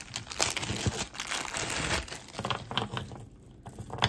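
Crinkling and rustling of packaging with small sharp clicks as jewelry is unwrapped and handled, with a short lull a little past three seconds in.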